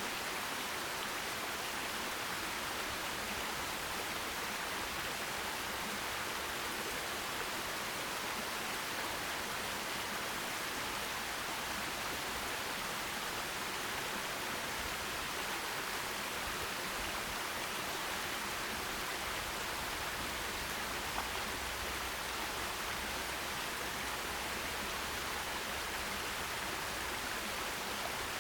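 Forest stream flowing: a steady, even rush of water.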